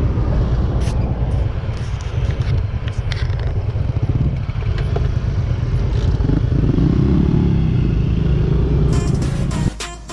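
Yamaha NMAX 155 scooter's engine running under heavy wind rumble on the microphone, picking up about seven seconds in as the scooter pulls away. Music starts just before the end.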